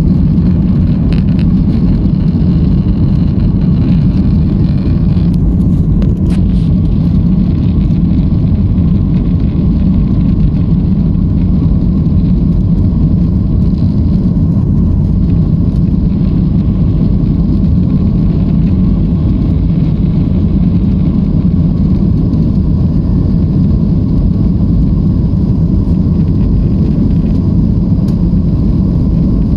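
Steady low cabin noise of a Boeing 737 MAX 9 climbing out after takeoff: its CFM LEAP-1B turbofan engines and the airflow over the fuselage, heard from a window seat inside the cabin.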